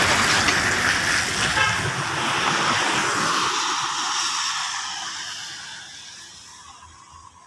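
A passing vehicle on the road, its engine and tyre noise loud at first and then fading steadily away over the last few seconds.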